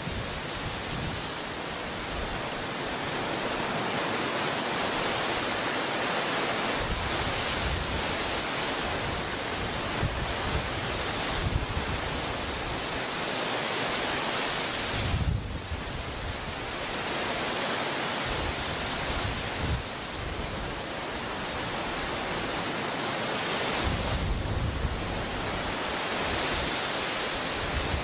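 Strong wind blowing steadily over the open river, with gusts striking the microphone as low rumbles, most strongly about halfway through and again near the end.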